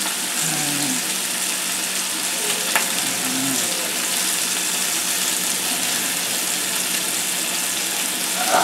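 Flour-coated beef pot roast sizzling steadily in hot olive oil as it browns in the pot, with one sharp click about three seconds in.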